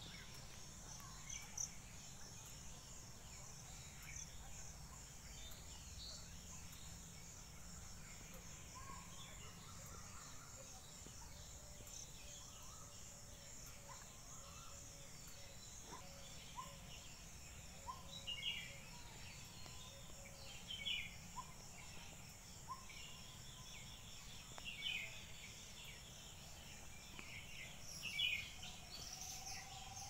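Woodland ambience: a steady, high-pitched insect drone under scattered short bird chirps and calls, which come more often in the second half.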